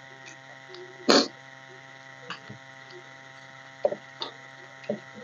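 Sounds of a person eating rice and mashed potato by hand: a few soft chewing and lip smacks spread through, and one short loud breathy burst about a second in. A steady electrical hum runs underneath.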